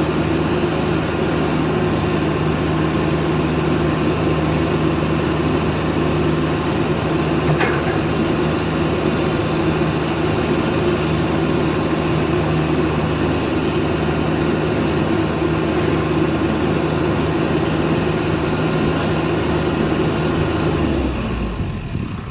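CAT excavator's diesel engine running steadily with a deep, even drone, then dying away near the end.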